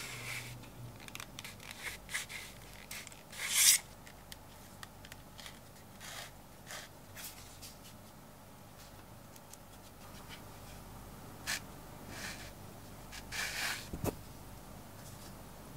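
Brown English bridle leather being handled and rubbed: a run of short scraping, rubbing strokes, the loudest about three and a half seconds in, with a sharp click near the end.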